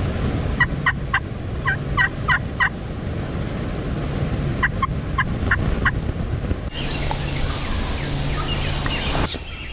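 Wild turkey toms gobbling in two quick runs of short notes, the second about four seconds after the first. A stretch of steady hiss follows in the second half.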